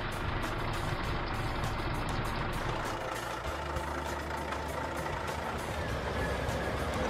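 Cartoon sound effect of a truck engine running steadily as the toy crane truck drives, its low drone shifting about halfway through.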